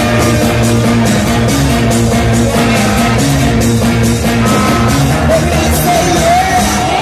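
Loud dance music with a steady beat, about two beats a second, playing through the party sound system.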